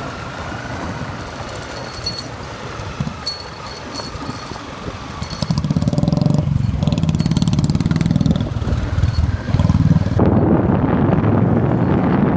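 Motorcycle engine running while riding a rough gravel road, growing louder about halfway through into a steady pulsing low rumble.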